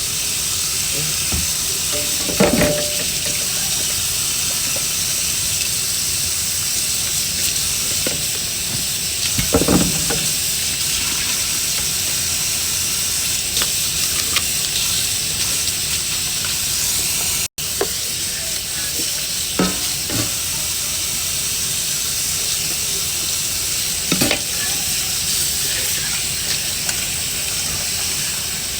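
Tap water running steadily into a sink while dishes are hand-washed, with a few dull knocks and clinks of dishes.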